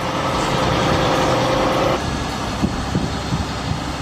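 Heavy diesel machinery running: a loud, steady engine sound with a held whine for about two seconds. It then changes abruptly to a lower engine sound with several sharp clunks.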